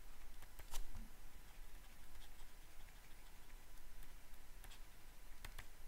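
Faint light clicks and taps of handwriting being drawn onto a tablet screen, with one louder click about three-quarters of a second in, over a low steady hum.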